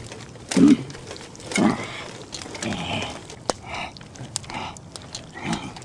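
A person's voice making short wordless grunts, about one a second, with one sharp click a little past the middle.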